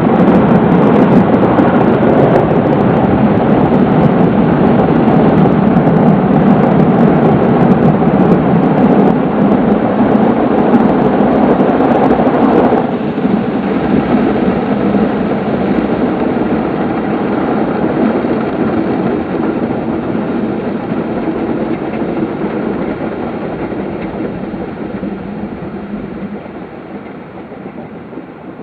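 Automatic car wash machine running: a loud, steady rushing noise of its machinery and spray. It drops suddenly about thirteen seconds in, then fades steadily toward the end.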